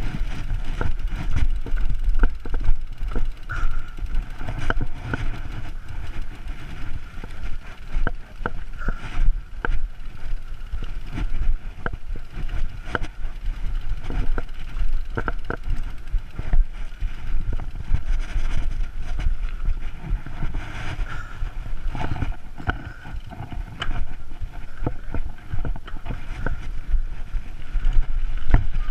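Mountain bike riding fast down a rough dirt trail, heard from a camera on the bike or rider: a constant low wind rumble on the microphone, broken by many sharp knocks and rattles as the bike hits roots and bumps.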